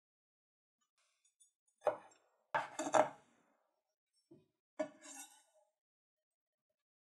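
Kitchen utensils clinking against a bowl: a few separate sharp knocks, each with a brief ring. The loudest cluster comes about two and a half to three seconds in.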